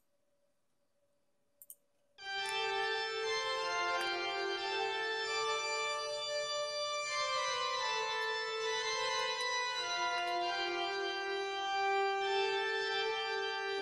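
Xpand!2 software instrument's 'Large Cathedral Organ' preset playing held chords that change slowly, starting about two seconds in. Two short clicks come just before it.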